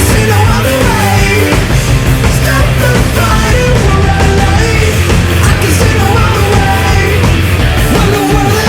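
Loud rock music with heavy bass, distorted guitars and a sung or shouted vocal line.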